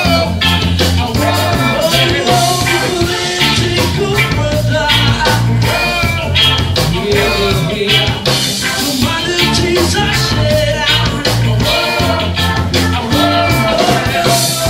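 Live reggae band playing, with electric guitars and keyboard under a man singing lead over a steady rhythm.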